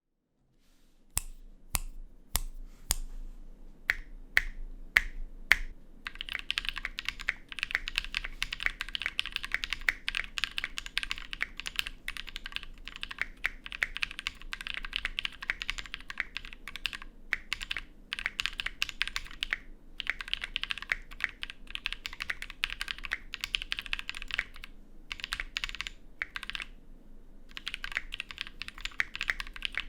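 Tofu60 mechanical keyboard with lubed and filmed NovelKeys Kailh Cream linear switches, an aluminium plate and ABS keycaps being typed on. It starts with a few separate keystrokes about half a second apart, then moves to fast continuous typing with a few brief pauses.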